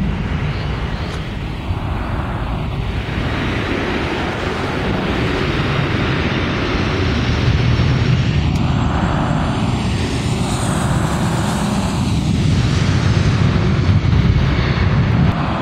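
Jet airliner on short final approach passing close overhead, its engine noise steady and loud with a sweeping, phasing quality that comes and goes several times as it goes by.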